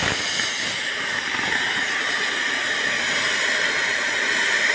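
Gas cutting torch hissing steadily as its flame cuts through a steel railway rail.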